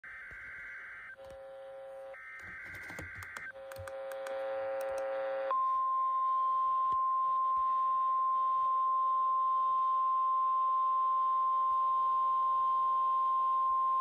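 NOAA Weather Radio alert signals from a Midland weather radio's speaker. Digital SAME header data bursts alternate with a lower buzzing tone for about five seconds, then the steady single-pitch 1050 Hz warning alarm tone takes over and holds for the rest. These are the attention signals that trigger alert receivers.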